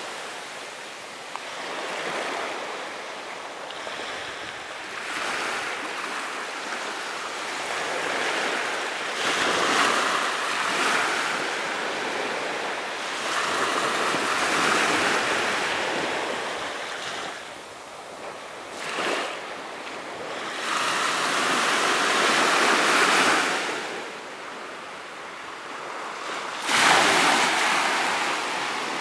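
Small ocean waves washing onto a beach, swelling and receding every few seconds, with one sharper breaking surge near the end.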